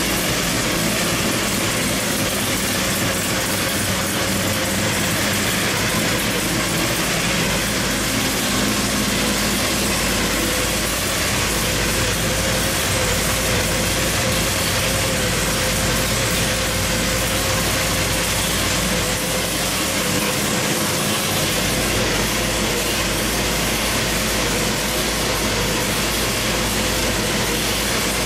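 Supercharged 540 cubic-inch big-block Chevy V8, with a belt-driven blower and twin carburettors on top, running loud and steady on an engine dyno.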